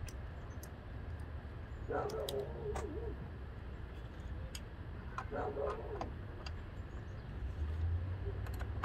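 Scattered light clicks of hand tools on metal fittings in a car's engine bay, during turbo removal, over a steady low hum. Twice, about two and five seconds in, a short muffled voice sounds in the background.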